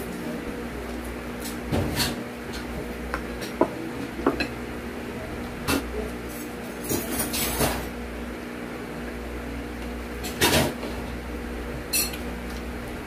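Tableware being handled while eating: a wooden fork and dishes giving scattered short clicks and knocks, the loudest a double knock about ten and a half seconds in.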